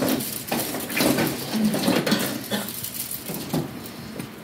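Christmas baubles clinking and plastic packaging rustling as hands rummage through storage boxes of tree decorations, in scattered short clicks and rattles.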